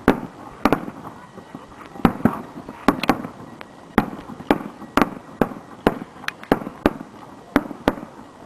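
Aerial fireworks shells bursting in a rapid, irregular run of sharp bangs, about two a second.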